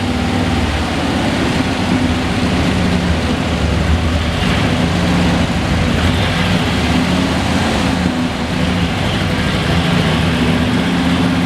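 1957 Ford Thunderbird's 312 V8 with dual four-barrel carburettors running at low speed while the car is driven slowly forward and turned, its note holding steady with small rises and dips.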